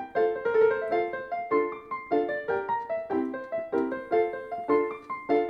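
Background piano music: an evenly paced melody of struck notes that ring and fade, several a second.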